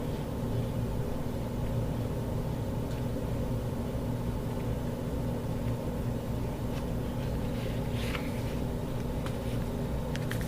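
Steady low background hum, with a few light clicks and rustles in the last few seconds from the watch box and packaging being handled.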